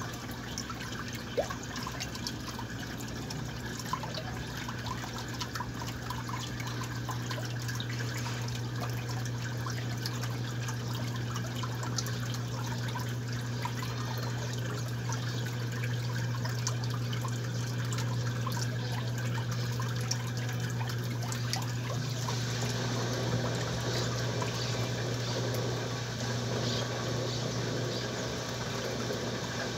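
Top-loading washing machine filling with water: a steady trickle of water into the tub over a steady low hum, with small crackles. About 22 seconds in, the water sound grows fuller.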